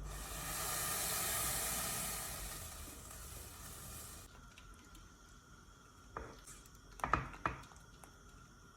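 Kitchen sounds: a steady hiss that swells and fades over about four seconds, then three light knocks.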